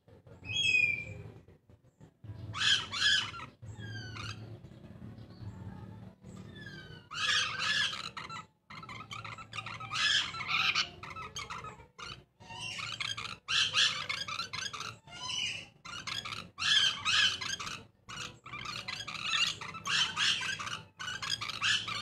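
Caged lorikeets calling: bouts of shrill, harsh screeching repeated over and over, with a few short sliding whistled notes early on.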